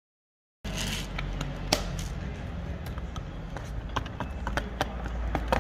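Irregular light taps and clicks over a steady low hum, starting abruptly out of silence about half a second in.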